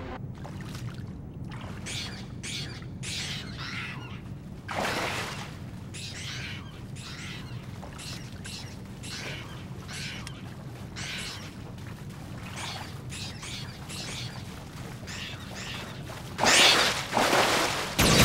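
A steady low electronic hum, with many short, faint high chirps and clicks scattered over it. A louder rushing sound comes about five seconds in, and a loud burst of noise near the end.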